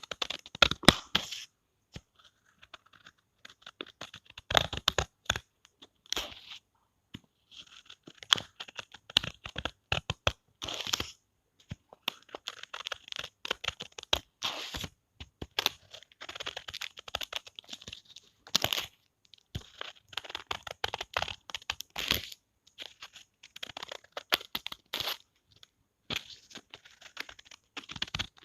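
Scissors cutting paper: quick crisp snips and paper rustle in runs of a second or two, with short pauses between.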